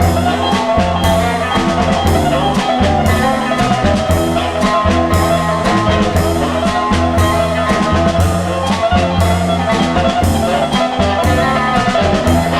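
Instrumental passage of a 1960s folk-psych garage-rock song: a drum kit keeps a steady beat under sustained guitar and other band instruments, with no vocals.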